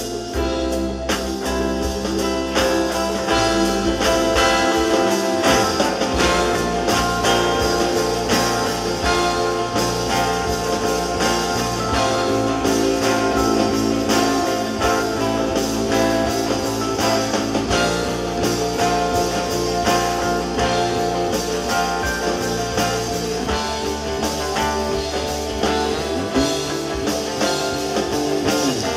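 Live rock band playing: guitars over a drum kit.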